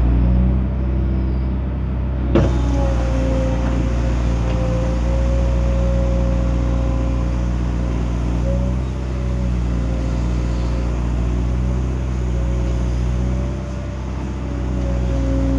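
Excavator's diesel engine running steadily under work, with a thin high whine over it that wavers slightly in pitch. A single sharp knock about two seconds in.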